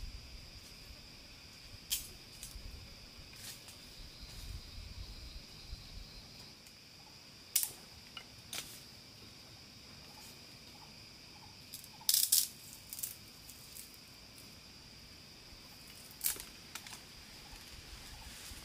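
Steady high-pitched insect drone, with a few sharp clicks and rustles scattered through it; the loudest cluster comes about twelve seconds in.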